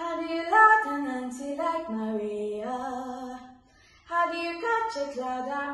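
A girl singing solo, with no accompaniment heard: a melodic phrase, a short breath pause a little after halfway, then a second phrase.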